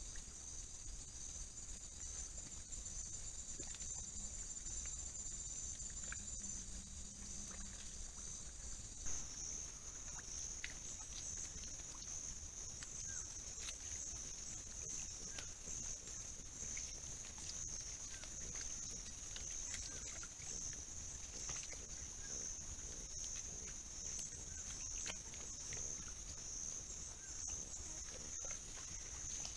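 Steady high-pitched insect chorus: several even, pure-toned trills at first, switching abruptly about nine seconds in to a single broader steady buzz. Through the later part, faint scattered ticks and rustles from peccaries foraging in the dry grass.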